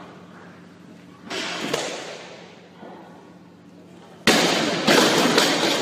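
Heavy barbell loaded with 210 kg of plates clanking and rattling as it moves on the lifter's shoulders. A sudden loud clatter comes about four seconds in, a second one half a second later, and it fades slowly.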